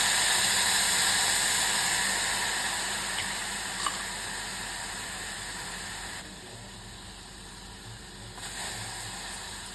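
Hot pan sizzling with a steady hiss, loudest at the start and dying away over several seconds, dropping off suddenly about six seconds in.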